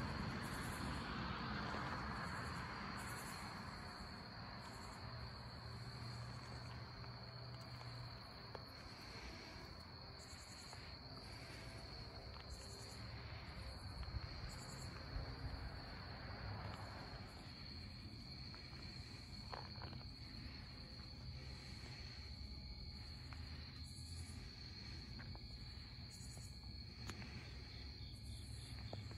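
Dusk chorus of crickets and other insects: a steady high trill with louder pulsing calls above it, over a low rumble.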